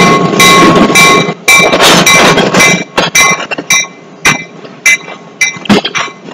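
Freight train of covered hopper cars rolling past: wheels clanking and clicking sharply over the rail joints with a metallic ringing. The clanks come thick and loud for the first three seconds or so, then more spaced out.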